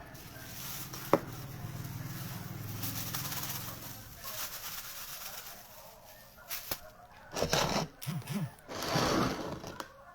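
Chickens clucking, with bending calls in the second half, and a sharp click about a second in.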